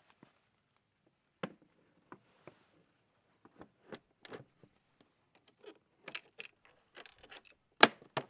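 Hard saddlebag being handled and fitted back onto a Honda ST1300 motorcycle: scattered plastic clicks, knocks and scrapes that get busier after a few seconds, with a loud sharp clunk near the end and another just after.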